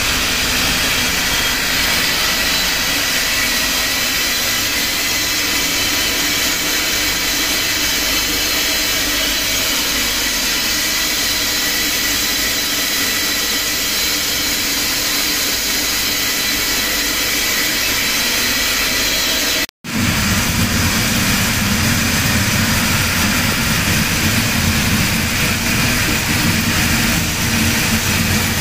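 Roller-die wire drawing machine running: a steady mechanical whir and hiss from its spinning capstans and roller dies, with a few faint high whining tones. After a momentary cut-out about two-thirds of the way through, a deeper hum is louder.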